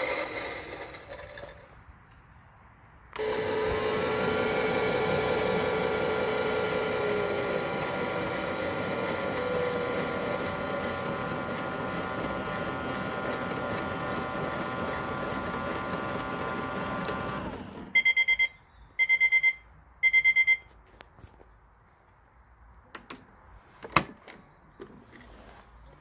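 Toy washing machine running its wash cycle with water in the drum: a steady whirring with a hum that stops suddenly, followed by three short beeps marking the end of the cycle. A few clicks follow near the end.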